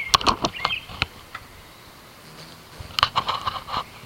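A bird giving short, sharp chirping clicks in two quick bursts, one in the first second and another about three seconds in.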